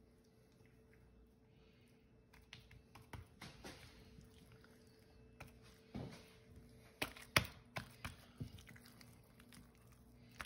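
Faint, soft taps and sticky slaps of hands folding and patting buttered msemen dough on a granite countertop, with a few sharper taps past the middle.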